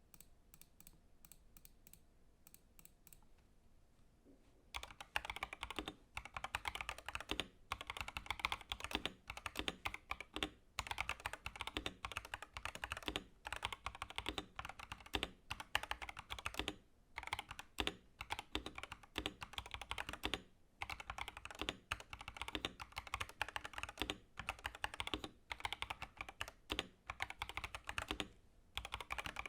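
Mechanical keyboard typing on an Epomaker TH80 Pro, a gasket-mount board with a steel plate, PBT keycaps and pre-lubed Epomaker Flamingo linear switches. A few faint key presses come first, then about five seconds in steady, fast typing starts, with only brief pauses.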